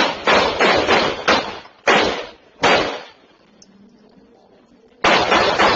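A rapid string of gunshots, each crack trailing off in a short echo, picked up by a doorbell camera's microphone. After about three seconds there is a pause of roughly two seconds, then another quick volley begins near the end.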